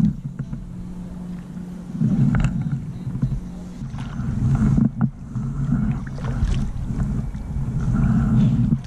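Wind buffeting an action camera's microphone as a low, rough rumble, with a few light knocks.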